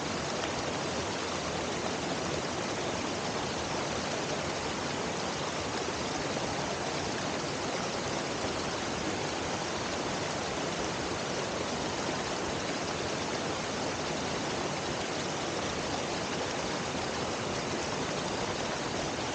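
Water of a small stream pouring over a low rocky waterfall and cascades: a steady, unbroken rush.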